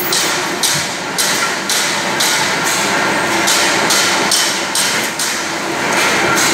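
Factory machinery beating out a sharp, hissing clatter about twice a second over a steady machine hum. The strokes stop about five seconds in and the hum carries on.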